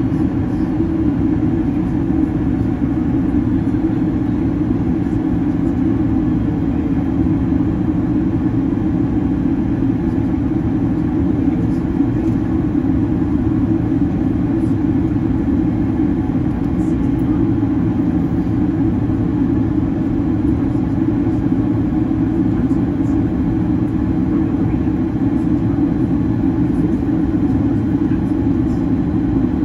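Cabin noise of a Boeing 767-300 airliner in flight, heard from a window seat by the wing: a steady, unchanging low rumble of the jet engines and airflow.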